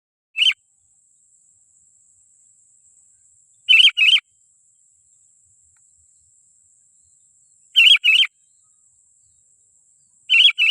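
Sooty-headed bulbul (kutilang) calling in short, warbling double notes, repeated about every four seconds as a lure call for wild bulbuls.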